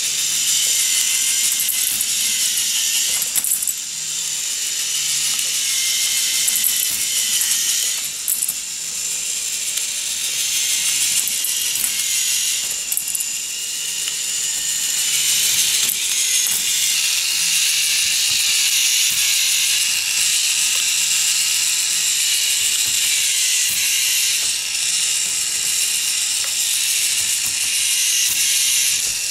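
K'NEX stepper ball lift running: its plastic rods, connectors and stepping carts clicking and rattling continuously as the motor drives them.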